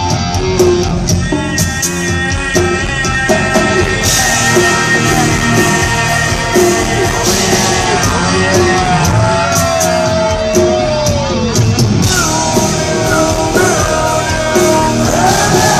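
A live rock band playing at full volume, with drums keeping a steady beat and held melodic lines, one of them sliding up and back down in pitch partway through.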